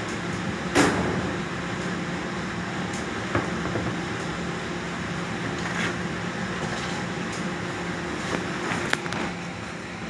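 Industrial washing machine running with a steady hum, broken by a few sharp knocks, the loudest about a second in.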